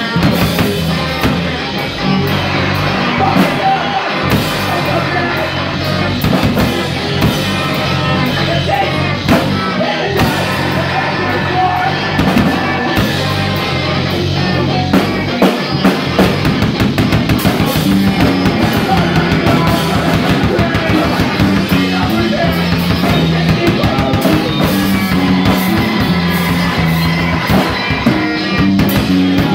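Live rock band playing loud and continuous, with a drum kit, electric guitar and bass.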